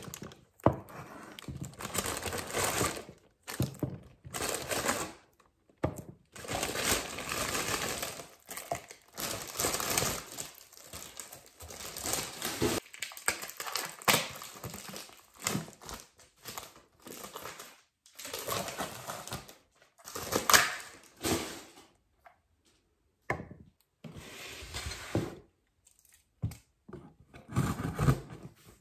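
Clear plastic packaging bags crinkling and rustling in irregular bursts with short pauses, as plastic storage containers are unwrapped from them.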